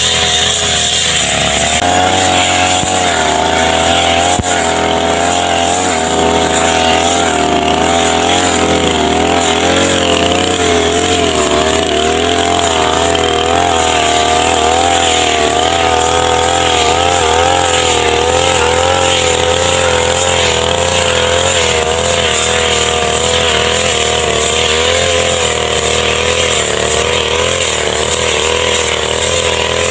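Small two-stroke brush cutter (grass trimmer) engine running continuously, its pitch wavering up and down slightly as the throttle and load shift.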